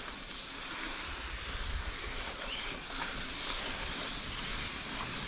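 Calibre Triple B mountain bike's tyres rolling steadily over a dirt forest trail, with wind on the microphone. A brief high chirp comes about two and a half seconds in.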